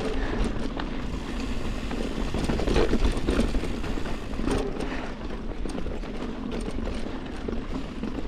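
Ibis Ripmo mountain bike ridden along dirt singletrack: tyres crunching over loose dirt and rocks, with the chain and frame rattling in quick clicks, over a steady low wind rumble on the microphone.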